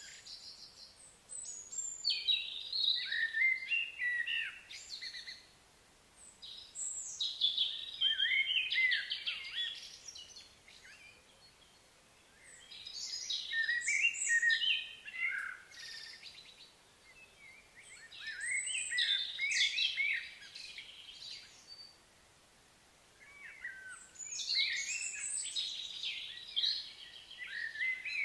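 A songbird singing long, quick, varied warbling phrases, five in all, each three to four seconds long with a pause of about two seconds between them.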